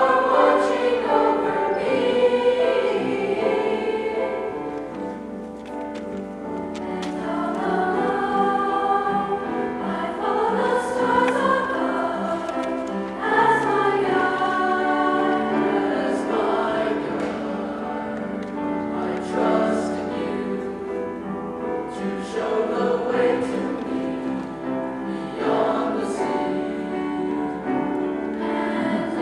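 A youth choir of girls and boys singing in parts, with long held notes. The sound softens briefly about five seconds in and then swells again.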